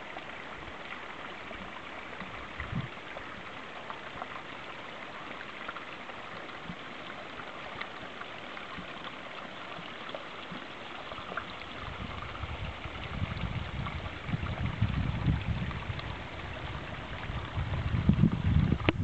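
Steady rushing hiss of stream water. From about halfway through, a low rumble of wind on the microphone builds and is loudest near the end.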